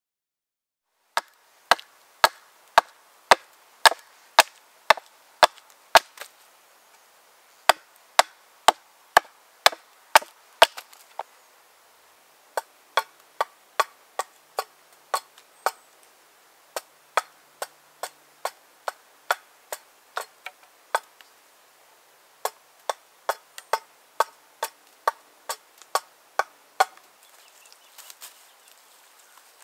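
Hand axe chopping wood, sharp single strokes about two a second, in several runs with short pauses between them.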